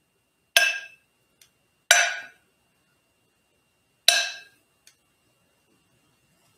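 A metal kitchen scoop clinks sharply against a glass batter bowl three times. Each strike has a short ringing tail, and the three are spread over about four seconds.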